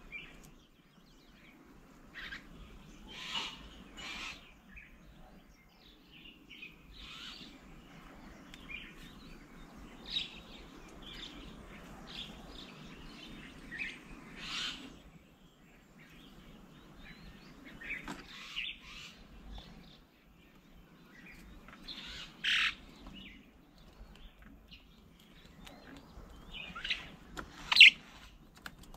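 Several birds chirping and calling in short, scattered calls, a few of them louder, about three seconds in, past the middle and near the end, over a faint low background hum.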